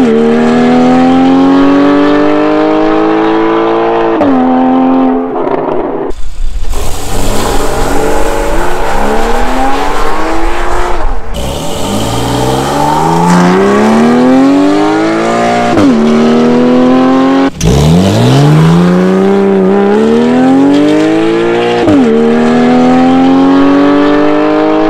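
Porsche 911 (991.1 Carrera) flat-six with a Soul Performance valved exhaust accelerating hard away, in several separate pulls. In each pull the engine note climbs steadily, then drops sharply at an upshift and climbs again. The exhaust valves are open on most runs and closed on one in the middle.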